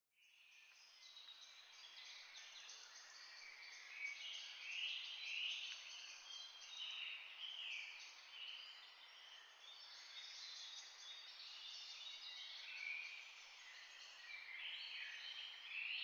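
A faint, dense chorus of many small birds chirping and singing at once over a steady hiss.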